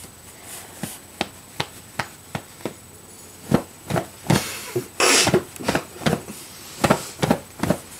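Soft thumps of a hand puppet striking a sleeping child's head and pillow: a run of light, evenly spaced taps about two or three a second, then louder, more irregular hits with a burst of bedding rustle about five seconds in.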